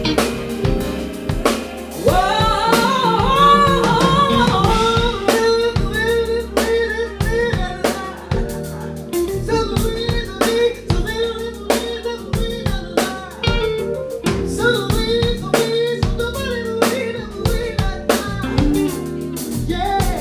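Live jazz-funk band playing with a woman singing lead: a wavering sung line over a drum kit keeping a steady beat, bass and guitar.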